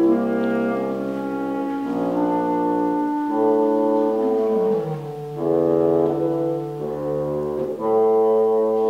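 Bassoon and clarinet playing a duet in sustained notes, two parts moving together and changing pitch every second or so. The sound dips briefly in loudness about five seconds in.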